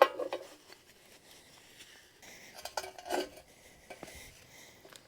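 Steel excavator bucket pins clinking as they are handled: a sharp clink with a short ring at the start, then a few quieter metal knocks about three seconds in.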